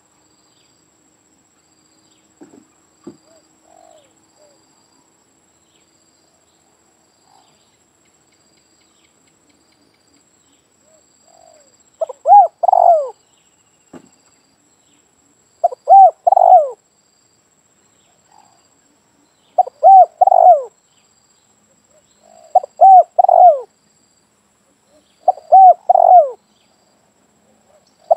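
Spotted dove cooing: five phrases, each a few quick coos ending in a longer falling note, repeated about every three to four seconds from about twelve seconds in.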